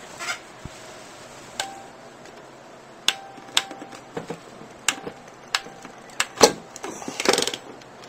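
Ratcheting coax crimp tool clicking as its handles are squeezed down to crimp the ferrule of a PL259 connector onto RG213 coax. There are about seven sharp clicks, unevenly spaced, and several ring briefly like metal. A longer clatter comes near the end.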